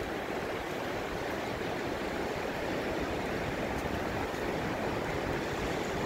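North Sea surf washing up a flat sandy beach, a steady rushing wash of water, with strong wind buffeting the microphone.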